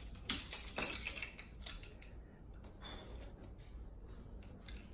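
A few light clicks and knocks in the first couple of seconds, then quiet room tone.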